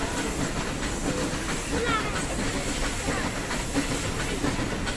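Nilgiri hill passenger train running along the track, a steady rumble of wheels on rails with hissing noise. A few short high chirps come about two seconds in.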